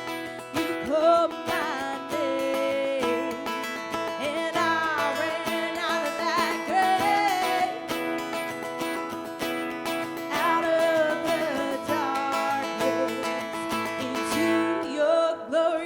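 Worship song sung with acoustic guitar accompaniment: a voice holding and sliding between notes over steady strummed chords.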